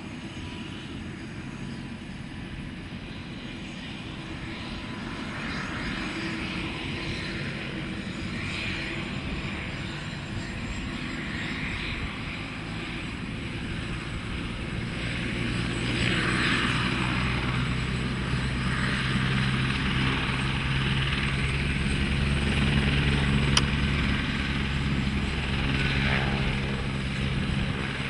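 Helicopter engine and rotor running overhead, growing louder about halfway through as it comes closer.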